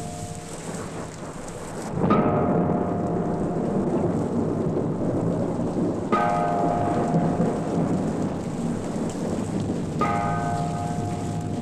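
A bell tolling slowly, struck three times about four seconds apart, each stroke ringing on and fading, over steady rain and thunder rumble.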